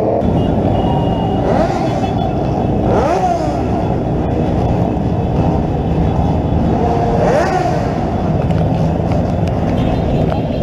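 Many motorcycle engines running together in a large group ride. Engine revs rise and fall back about a second and a half in, at three seconds, and again around seven seconds.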